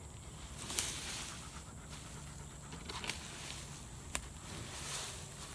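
Breathy panting close to the microphone, in a few swells about two seconds apart, with a couple of sharp clicks.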